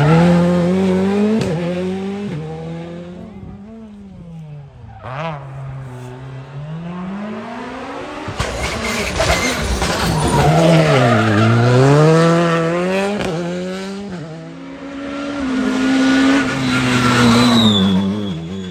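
Rally car engines at full throttle on a special stage, revving up through the gears and dropping in pitch on braking and downshifts. The sound swells and fades as cars come past, loudest near the start, about two-thirds of the way in and near the end.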